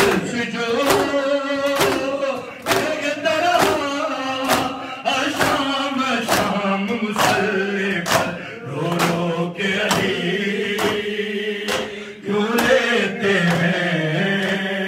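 Men chanting a noha, an Urdu mourning lament, led by a single male reciter. Under it runs a steady beat of open hands slapping chests in matam, about three slaps every two seconds.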